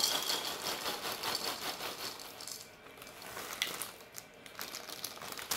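Froot Loops cereal pouring from a plastic bag into a bowl. A dense rattle of small pieces hitting the bowl for about the first two and a half seconds thins to a few scattered clicks.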